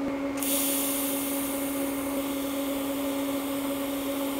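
TIG welding arc on thin stainless steel, a steady high hiss that strikes about half a second in and holds, over a steady low electrical hum.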